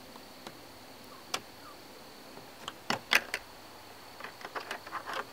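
Plastic clicks and snaps as a screwdriver pries the plastic trim piece behind the interior door handle of a Chevy Cruze front door panel. A few scattered ones come first, the loudest a little after three seconds, then a quick run of small clicks near the end.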